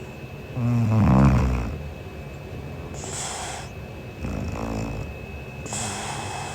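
A young woman snoring in her sleep: a loud rasping snore about half a second in, a breathy hiss, then a second, weaker snore followed by another breathy hiss.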